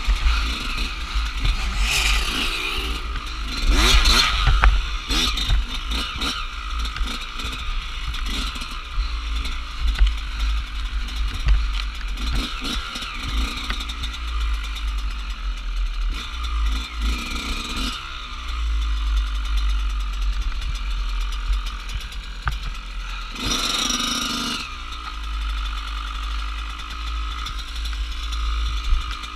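Off-road dirt bike engine revving up and down as it is ridden along a rough forest trail, heard close from the bike's camera mount, with a heavy low rumble from the bumpy ride. A louder rush of noise comes about 4 seconds in and again about 24 seconds in.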